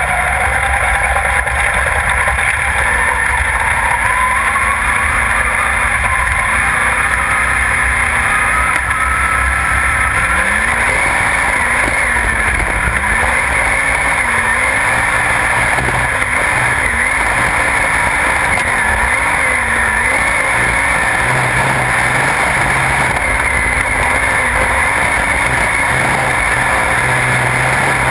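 Sprintcar's V8 race engine running hard at speed, its pitch climbing at first and then rising and falling over and over as the throttle works, under a constant rush of wind and dirt-track tyre noise on the car-mounted camera.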